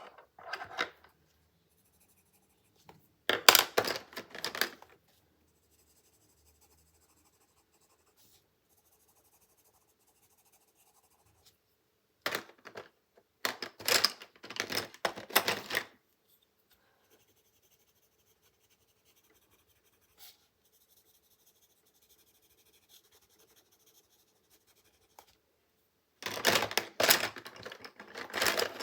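Coloured pencil scribbling on coloring-book paper in quick strokes, in three spells of a few seconds each, with near silence between them.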